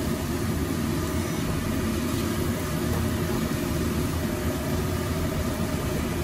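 Garlic and ground spices frying in hot oil in a metal pot, a steady sizzle as a silicone spatula stirs them, with a steady low hum underneath.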